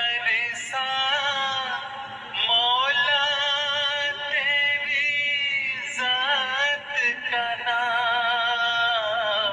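A solo voice singing a hamd, a devotional poem praising God, in long held notes with a wavering vibrato. The sound is thin and cut off at the top, with a brief pause between phrases about two seconds in.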